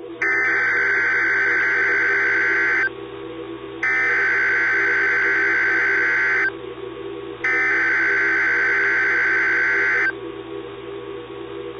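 Emergency Alert System SAME header: three identical harsh, buzzy digital data bursts, each about two and a half seconds long, a second apart, over a steady low drone. It is the encoded header that opens an EAS alert.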